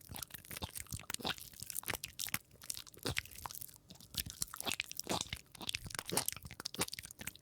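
A person biting and chewing crunchy food: a rapid, irregular run of crisp crunches.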